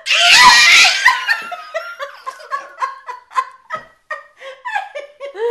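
A baby laughing in a string of short, high giggles, about three a second, that slowly weaken. It opens with a loud, breathy burst of sound that is the loudest moment.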